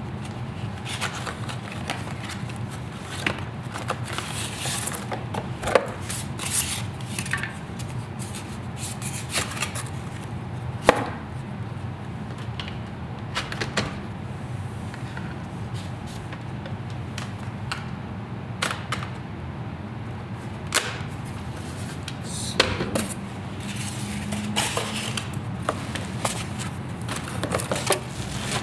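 Irregular clicks, taps and knocks of cameras and packaging being handled and set down on a hard surface, over a steady low hum.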